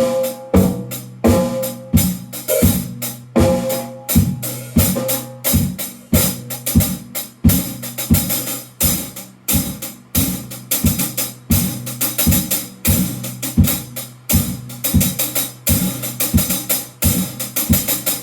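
Drum kit played in a steady, even beat, a few strikes a second, with cymbals washing over the top.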